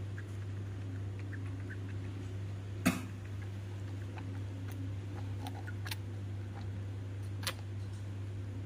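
Newborn baby monkey suckling milk from a feeding bottle: faint wet sucking and smacking sounds, with a sharp click about three seconds in and two softer ones later. A steady low hum runs underneath.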